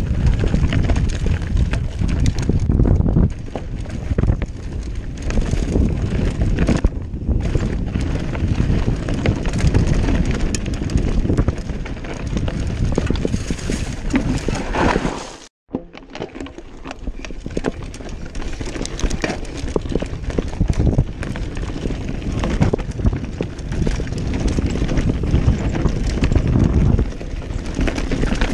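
Commencal Meta AM V4 enduro mountain bike descending a rocky trail: tyres crunching and clattering over loose stones and rock, with the bike rattling over the bumps. The sound cuts out for an instant about halfway through.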